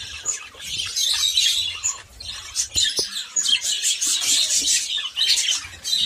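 A flock of caged budgerigars chattering and chirping without pause, many high, scratchy calls overlapping. A single small knock about halfway through.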